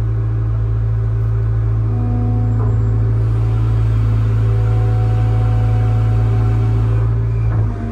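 Excavator's diesel engine running steadily under load, with a steady whine joining about two seconds in as the boom lowers and the bucket digs into the dirt.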